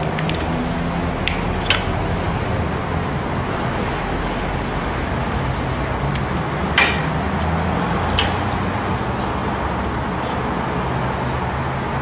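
A few sharp clicks and taps of hands handling wires and tools on a microwave oven's metal chassis, the strongest about seven seconds in, over a steady low hum of background noise.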